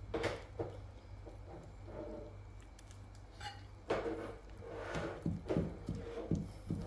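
A wooden spoon stirring a thick flour-and-water sourdough starter in a glass dish, the spoon scraping and tapping against the glass in a run of short strokes, busiest from about four seconds in.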